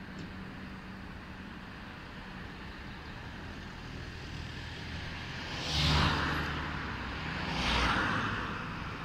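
City road traffic: a steady hum of cars going by on a street. Two vehicles pass close, the first peaking about six seconds in and the second about two seconds later, each swelling and then fading away.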